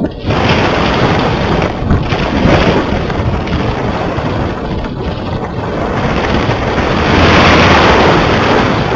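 Wind rushing over the microphone of a camera carried aloft on a kite: a loud, rough noise that rises and falls, swelling to its loudest near the end.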